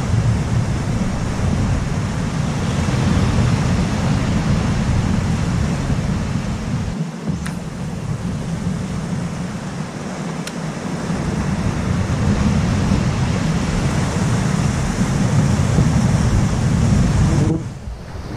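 Wind rumbling on the microphone, with ocean surf washing behind it. The rumble eases briefly about seven seconds in and again near the end.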